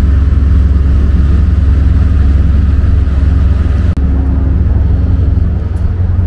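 Steady, loud low engine drone from the moored inland tanker, with a momentary drop about four seconds in.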